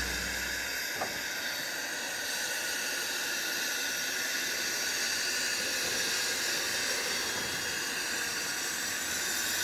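HG 4/4 steam locomotive No. 704 hissing steadily with escaping steam. A low rumble dies away in the first second, and there is a single click about a second in.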